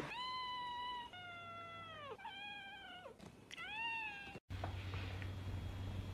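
A cat meowing, four drawn-out, high-pitched meows in a row, each sliding down in pitch at its end. After about four and a half seconds the meowing cuts off abruptly, leaving only a faint low hum.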